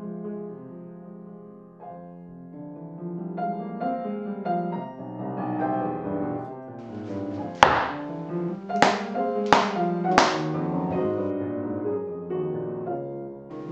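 Solo piano music playing, with four sharp thumps a little over halfway through, about one every second.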